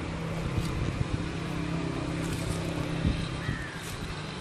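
A steady low motor drone, with a few light knocks over it, the sharpest about three seconds in.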